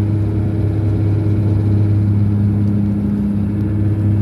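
Turboprop airliner climbing after takeoff, heard from inside the cabin: a steady propeller and engine drone with a deep constant hum and higher steady tones above it.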